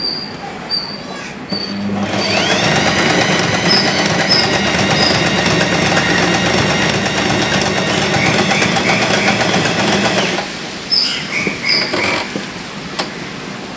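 Usha Janome Excella electric sewing machine stitching a pattern stitch. The motor whines up to speed about two seconds in, runs steadily with the needle clattering for about eight seconds, then stops. A few clicks follow near the end as the stitch selector dial is turned.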